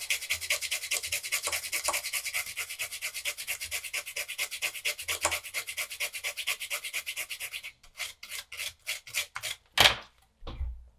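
Toothbrush bristles scrubbing a circuit board wet with isopropyl alcohol in quick back-and-forth strokes, about six a second. Near the end the scrubbing slows to a few separate strokes, followed by a single sharp knock.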